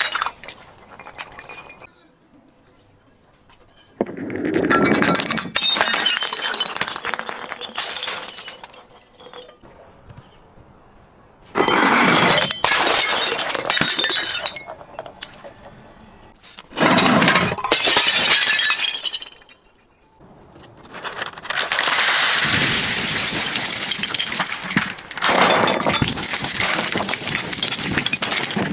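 Glass bottles being crushed and broken: four bouts of crunching, cracking glass, each a few seconds long with sharp snaps in them, separated by short quieter gaps. The last bout is the longest.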